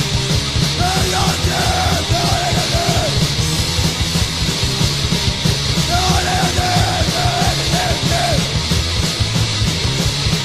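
Swedish hardcore punk recording: fast, dense drums and distorted guitar with shouted vocals, coming in as a phrase about a second in and again around six seconds.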